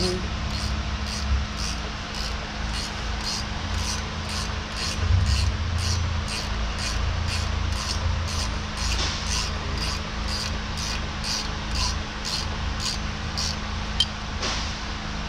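Steady machine hum with an even ticking about twice a second, under low handling noise of work on a tractor's loader bracket. A single sharp metal clink from a wrench near the end.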